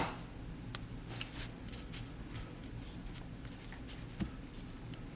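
Small metal and plastic handling sounds: a scatter of faint clicks and light scraping as a punch works the pin out of a Glock's plastic trigger pad, with several clicks in the first two seconds and one more near the end.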